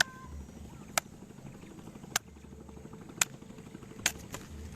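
A series of five sharp knocks, about one a second, over a faint low rumble.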